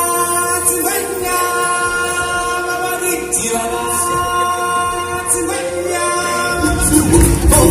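A choir of stage-show singers holding long, sustained chords with almost no accompaniment, changing chord a few times. Near the end, a band with a heavy low beat comes in underneath and the music gets louder.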